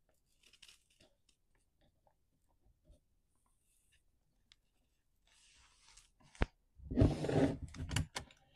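Hands working on a chainsaw's carburettor and air-intake parts: faint small clicks of plastic and metal parts being fitted, then a sharp click about six and a half seconds in and louder clattering of plastic parts being handled near the end.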